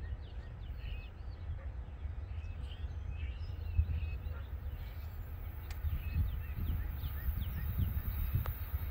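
Small birds chirping repeatedly, with many short calls, over a steady low rumble.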